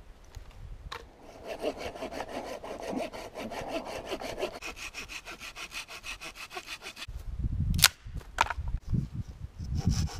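Corona folding hand saw cutting through a dry branch in quick, even strokes, starting about a second in. Near the end the sawing stops and there is a sharp crack, the loudest sound, then a second smaller one, as the branch is broken by hand.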